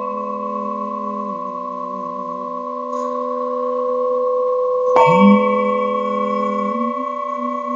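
Singing bowls ringing with long, steady, overlapping tones; a fresh strike about five seconds in brings a new bright ring that slowly dies away.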